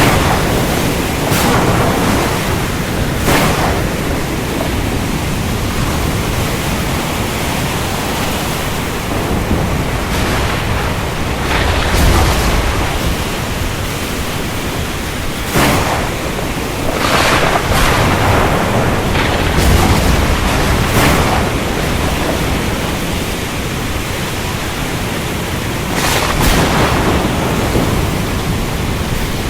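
Ocean storm: a steady roar of wind, rain and surf, with sharp crashes of thunder every few seconds.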